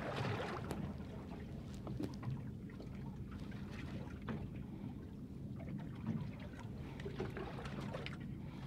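A boat's engine idling low and steady, with water lapping and small knocks against the hull.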